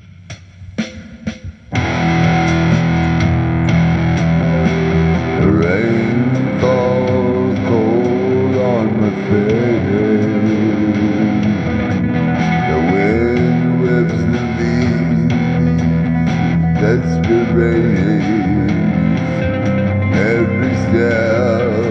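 Instrumental song intro led by guitar. A few quiet plucked notes come first, then the full band comes in about two seconds in and plays steadily, with a lead line that bends and wavers in pitch.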